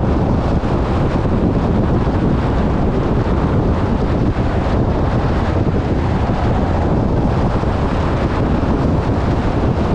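Wind buffeting the microphone of a motorcycle on the move, a steady loud low rumble.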